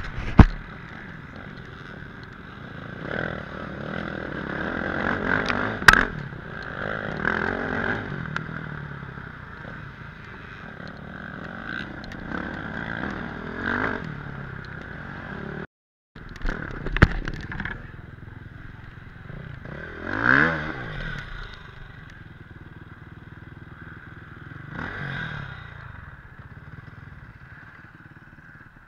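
Dirt bike engines on a steep hill climb, revving up and down with bikes passing, over a steady engine drone. Several loud knocks and clattering scrapes from the bike and rider's gear sound in between, the loudest near the start and about six seconds in.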